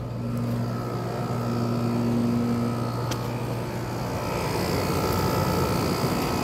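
Window air conditioner running, heard at its outdoor back end: a steady hum and whir from the compressor and condenser fan, with one low tone dropping out about four seconds in. The owner puts the noise down to something inside the unit.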